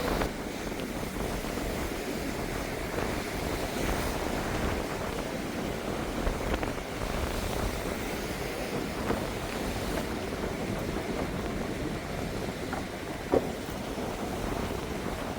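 Steady wind buffeting the microphone over the wash of ocean surf, with a short knock about thirteen seconds in.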